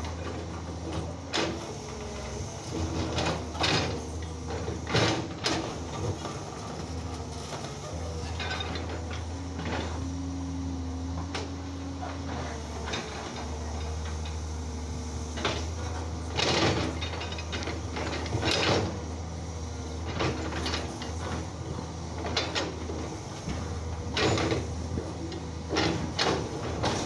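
Komatsu hydraulic excavator working limestone rock: its diesel engine hums steadily while the steel bucket scrapes and strikes the rock, giving repeated sharp knocks and clanks.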